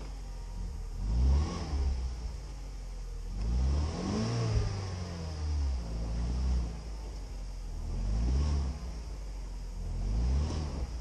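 UAZ Patriot SUV engine revved again and again, its pitch rising and falling about five times roughly two seconds apart, the biggest rev near the middle. The SUV is stuck in a deep mud rut and is trying to drive out of it.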